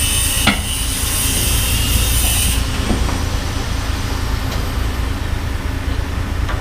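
Heavy diesel engine running with a steady low rumble, with a sharp metallic knock about half a second in and a lighter one near three seconds; a high hiss cuts off about two and a half seconds in.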